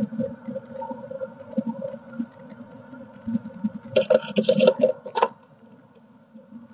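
Soft irregular knocks and rumble, then about four seconds in a brief, loud flurry of wingbeats and claws scrabbling on wood as a blue tit comes in through the nest box's entrance hole and drops to the floor, lasting a little over a second.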